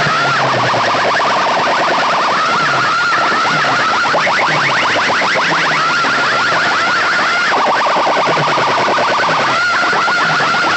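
Large PA loudspeaker stacks at a sound competition blasting an electronic siren effect: bursts of rapid rising chirps, about ten a second, take turns with a warbling tone, the pattern repeating every two and a half seconds or so. Loud and distorted, with a harsh hiss over it.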